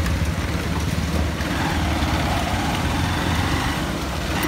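Motorbike engine running while riding, with a steady rush of wind and road noise over the microphone.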